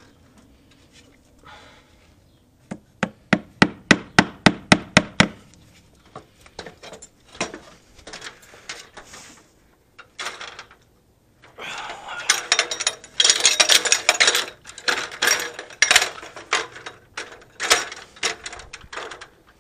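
A claw hammer driving in the nail of a cable clip that holds a coax line to a stucco wall: about ten quick, sharp strikes in a row, about four a second, about three seconds in. Later comes a longer stretch of irregular metallic clattering and knocking.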